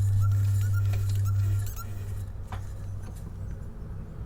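Wood lathe running with a steady low electric hum, switched off about a second and a half in, leaving a fainter hum and a few small clicks.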